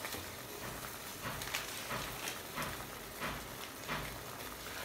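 Water at a rolling boil in a stainless steel pot, a steady hiss with scattered pops and bubbles, with two blocks of instant noodles cooking in it.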